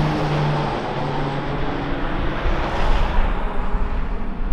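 Two Pilatus PC-21 single-engine turboprops flying away after takeoff, the propeller drone falling in pitch early on and then fading as they recede.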